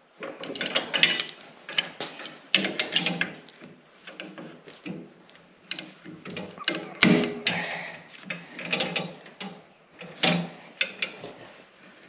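Irregular metal clinks, clicks and rattles of hydraulic hose fittings being handled and fitted against the steel hydraulic tubes of a John Deere 1025R front loader.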